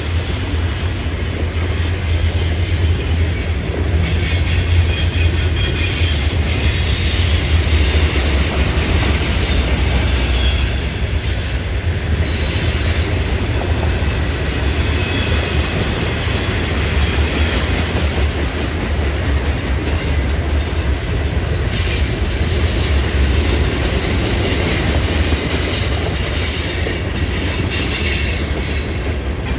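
Freight cars of a stone train rolling past: a steady, loud low rumble with scattered high wheel squeals.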